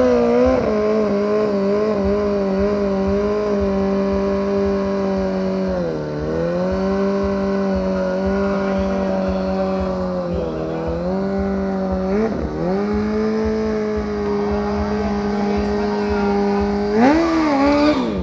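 BMW S1000RR inline-four sport bike engine held at high revs through a long rear-tyre burnout. The revs dip briefly three times, climb once more near the end, then cut off.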